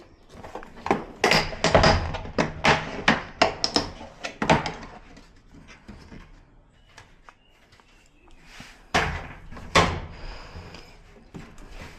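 A clatter of knocks, taps and clacks from hard objects being handled and set down. The knocks come in dense clusters in the first few seconds and again around nine to ten seconds in.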